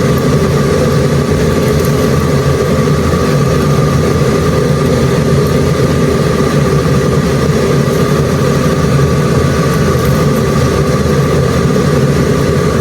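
A steady mechanical hum, like a motor or fan running, that does not change, with a few faint crackles over it.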